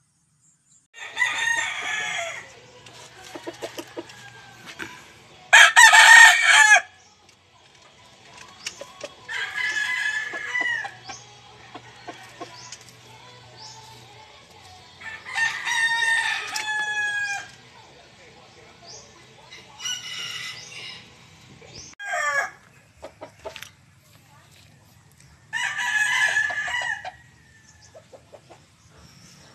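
Gamefowl roosters crowing, about seven crows one after another a few seconds apart, one much louder than the others.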